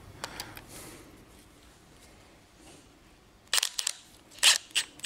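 Cordless drill-driver spinning the top nut of a coilover shock in a few short trigger bursts, starting about three and a half seconds in, after a few faint clicks of parts being handled.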